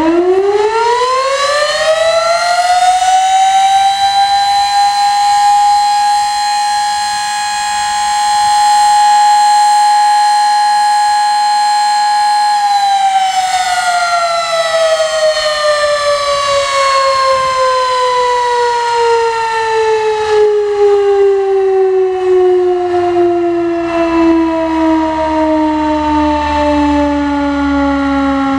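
Sterling M-10 electromechanical tornado siren sounding a test: it winds up to full pitch over the first few seconds, holds a steady wail, then winds down slowly with a long falling pitch from about halfway through.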